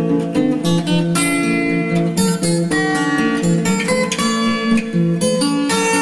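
Background music: an acoustic guitar playing a busy run of plucked and strummed notes.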